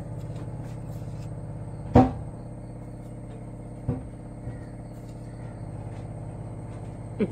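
Steady low mechanical hum in a kitchen, with a sharp knock about two seconds in and lighter knocks near four and seven seconds, as utensils are handled while salt is added to a pressure cooker of vegetables.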